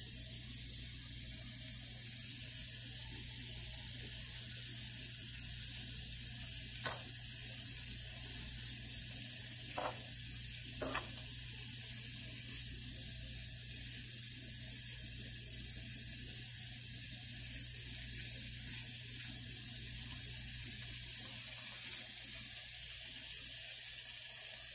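Paneer cubes sizzling as they fry in a little oil in a pan: a steady, even hiss, with a few faint light clicks around the middle.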